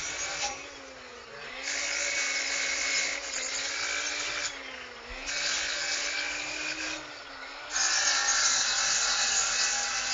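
A grinder working the steel of a fishing gig: a rasping noise in three bouts, each a second and a half or more, stopping briefly between them, with the last bout the longest and loudest. A faint wavering hum runs underneath.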